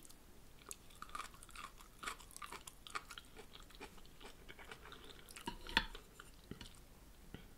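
Close-miked chewing of a mouthful of chicken-and-vegetable spring roll, with soft wet mouth clicks and small crunches; a sharper cluster of clicks about six seconds in.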